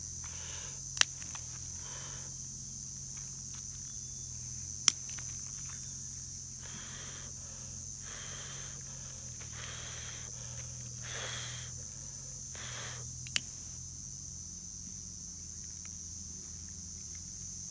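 Several soft scraping strokes and three sharp cracks, about one, five and thirteen seconds in, over a steady high-pitched insect drone and a low hum.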